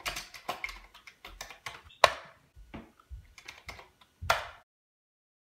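Keys being typed on a Commodore 64 keyboard as BASIC commands are entered: an irregular run of clicks with two heavier strokes, about two seconds in and just after four seconds. The typing stops about four and a half seconds in.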